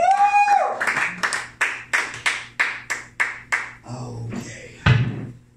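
Amplified guitar strummed in a steady rhythm of about three strokes a second, opening with a wailing held note that bends up and then down. Near the end a loud, heavy thump lands and the playing stops.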